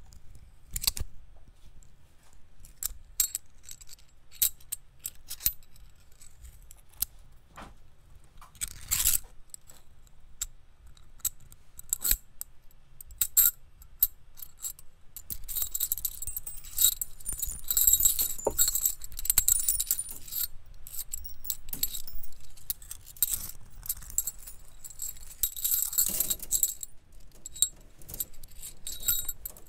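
Metal wires of a wire sculpture clicking, ticking and jangling against each other as a body shifts inside it: scattered sharp ticks at first, then a busier spell of high jingling and rattling in the second half.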